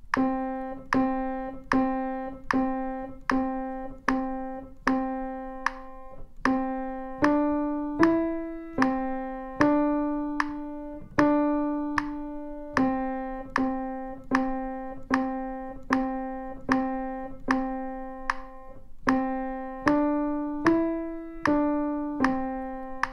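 Piano playing a slow single-note melody with the right hand, starting on middle C and stepping up a few notes and back. The notes come evenly, about one every 0.8 s, with a few held longer.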